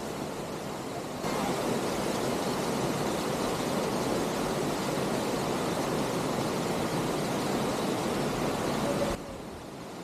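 Rush of a waterfall falling into a rock pool: a steady, even hiss of water that steps up louder about a second in and drops back near the end.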